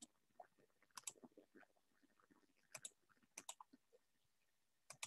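Near silence with a few faint computer mouse clicks, several of them in quick pairs.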